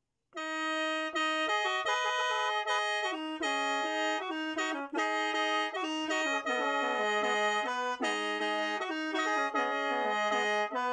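Khaen, the Lao bamboo free-reed mouth organ, played solo: a quick melody with several notes sounding at once and short breaks between them, starting just after a moment of silence.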